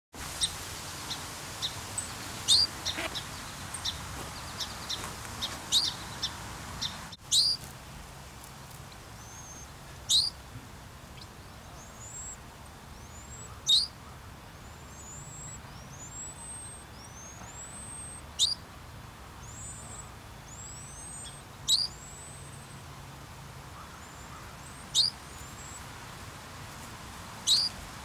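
Small songbirds calling at a ground nest: a run of quick high chirps, then a loud, sharp, falling call note about every three to four seconds, with fainter thin chirps between them.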